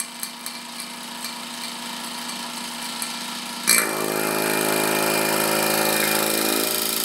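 Electric vacuum pump running steadily, pulling a vacuum on a new refrigerant recovery cylinder. A little past the halfway point there is a brief hiss and the pump's hum gets louder and fuller, then holds steady.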